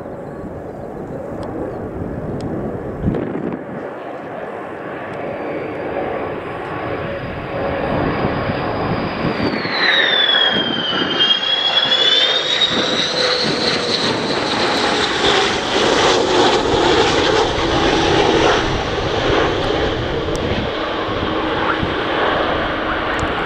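F-15E Strike Eagle's twin jet engines on final approach to land: a high whine over a steady rush of jet noise, growing louder as the jet nears. Halfway through, the whine dips in pitch and then climbs again.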